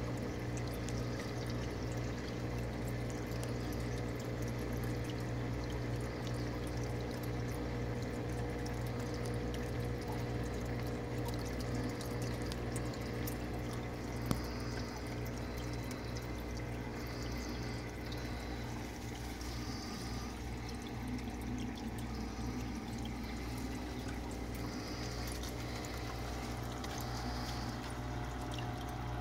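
Water pouring and splashing steadily into a reef aquarium sump, over a steady low hum. A single sharp click about halfway through.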